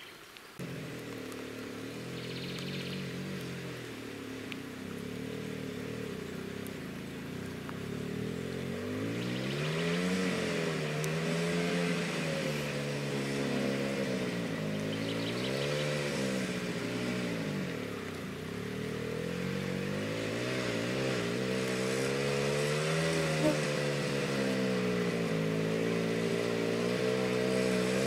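Soviet motorcycle's two-stroke engine starting up about a second in after stalling, running, then revving up and down over and over as the bike is ridden through deep mud and water.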